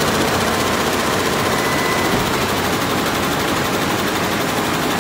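34-head multi-needle embroidery machine running, its heads stitching in a fast, steady rattle.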